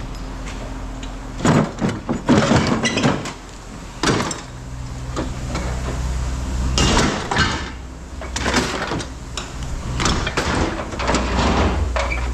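Scrap metal pieces clanking and clattering as they are handled and tossed while being sorted, in several bursts of impacts. A steady low hum runs underneath.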